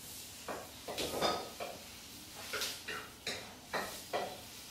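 A series of about ten light clicks and clinks of small hard objects being handled, one with a brief ringing note about a second in.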